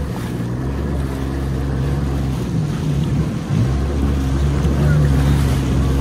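Yamaha jet ski engine running at speed, a steady drone over rushing water and wind on the microphone. It dips briefly about three and a half seconds in, then picks up and runs a little louder.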